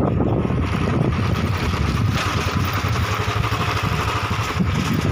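Motorcycle engine running steadily as the bike rides along, with a continuous rush of noise over it.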